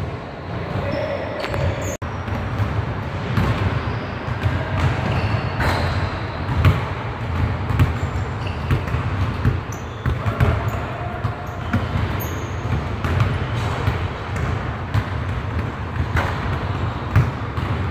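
Basketballs bouncing on a hardwood gym floor, a scattered run of irregular thuds echoing around a large hall, with a few brief high squeaks.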